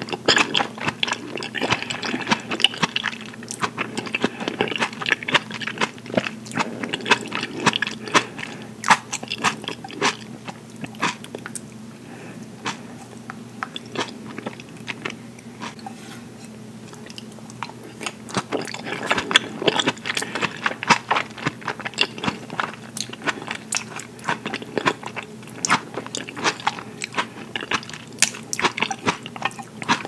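Close-miked chewing and biting of fresh mozzarella and tomato in balsamic dressing: wet mouth clicks and crunchy bites, thickest in a few clusters, with wooden chopsticks scraping and tapping on the platter.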